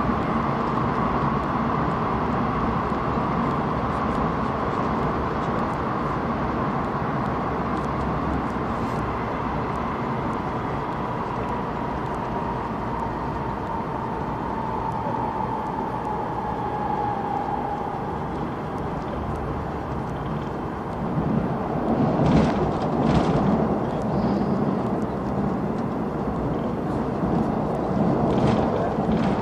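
Airport Railroad (AREX) express train running through a tunnel, heard from inside the train: a steady rumble of wheels on rail, with a whine that slowly falls in pitch through the middle. About two-thirds of the way in the rumble grows louder, with a few sharp clicks.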